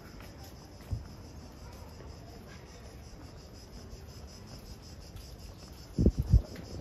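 Cicadas buzzing in a steady, high, finely pulsing drone. A low thump comes about a second in, and two louder low thumps come near the end.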